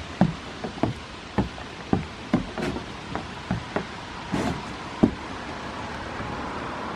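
Two goats sparring on a wooden box, about a dozen irregular, hollow knocks in five seconds, the last and loudest about five seconds in.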